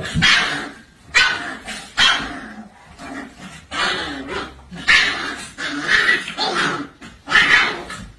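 A puppy's short, sharp barks and yips, repeated about once a second, as it challenges its mother during her correction.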